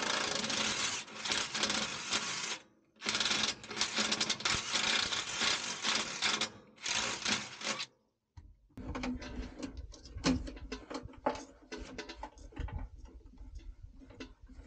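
A power drill boring the mounting hole for an air-spring top bracket into the chassis frame, running in three bursts, the last one short. After a short break, a run of light clicks and knocks from parts being handled.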